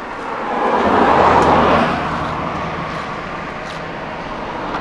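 A motor vehicle passing by on the road, its engine and tyre noise swelling to a peak about a second in and then fading away.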